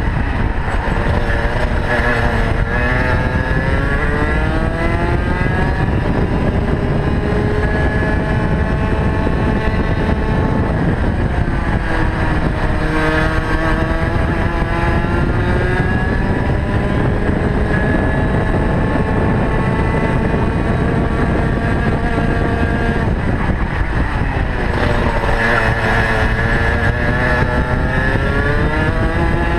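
Rotax Max 125 cc single-cylinder two-stroke kart engine at racing speed, heard from onboard. Its note drops three times as the kart slows for corners and climbs back each time as it accelerates out.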